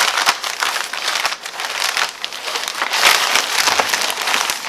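Thin plastic carrier bag crinkling and rustling as a carded toy in a blister pack is pulled out of it, with many small crackles throughout.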